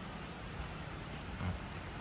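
Steady background hiss of outdoor ambience, with one soft low thump about one and a half seconds in.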